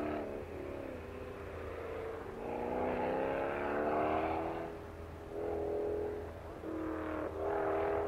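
Car engine on an autocross run, alternately accelerating and lifting off through the cone-lined corners: a long climb in pitch from about two and a half seconds in, a drop, then two shorter pulls near the end.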